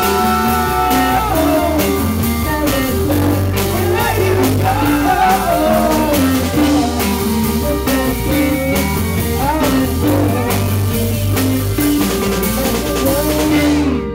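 Live rock band playing: electric guitar and drum kit, with a woman singing into a microphone.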